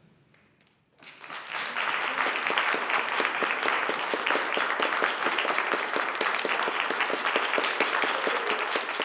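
Audience applauding, the clapping breaking out about a second in after a brief quiet and then holding steady.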